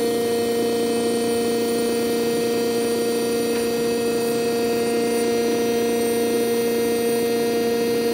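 Air Systems TA-3 Twin Air breathing air compressor running on 120-volt power, its electric motor and pump making a steady, even hum that does not change.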